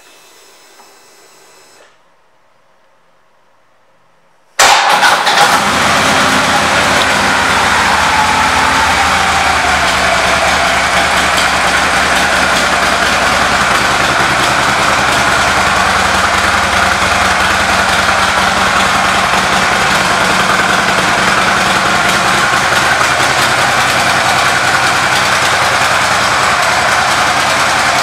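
2015 Harley-Davidson Street Glide Special's air-cooled Twin Cam 103 V-twin, fitted with an aftermarket intake, starts abruptly about four and a half seconds in. It drops slightly in pitch within a few seconds, then idles steadily.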